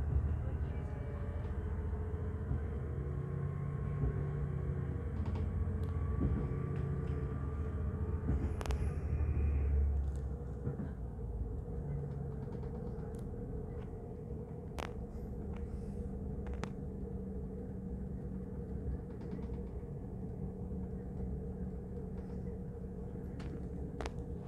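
Rumble of a moving regional train heard from inside the carriage, with scattered sharp clicks from the running gear. The rumble is heavier for about the first ten seconds, then eases to a lighter, steadier run.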